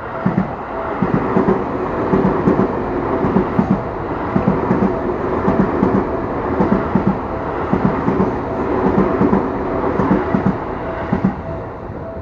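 Seibu Railway electric train passing over a level crossing, its wheels clacking rhythmically over the rail joints, with the rumble dropping away a little before the end. The crossing's warning bell keeps ringing in short repeated dings beneath it.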